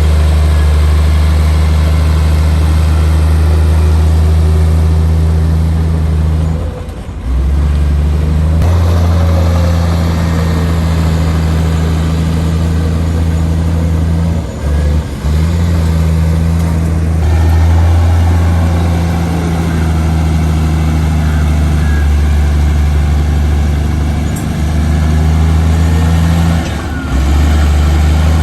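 Heavy diesel engine of earthmoving machinery running steadily with a deep, even drone, broken by a few brief drops in level.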